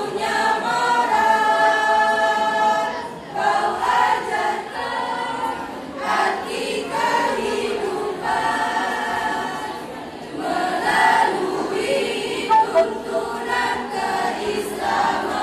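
School choir singing a hymn in long, held phrases with short breaks between them.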